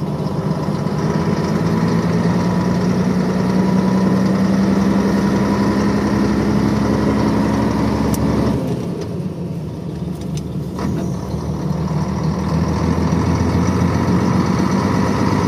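1975 Scania truck's diesel engine, freshly rebuilt, pulling away gently under light throttle. Its steady note breaks off about eight and a half seconds in and builds up again toward the end.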